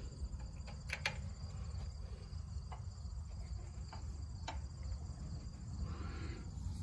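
Crickets chirping steadily in the background over a low steady rumble. A few faint metal clicks come from the socket and extension being fitted to the mower's oil drain plug.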